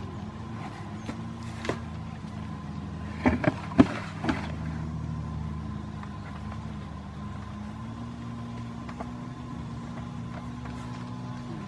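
A goat kid butting and shoving a cardboard box with its head, giving a cluster of sharp knocks on the cardboard a little over three seconds in and a smaller knock before that. A steady low motor hum runs underneath.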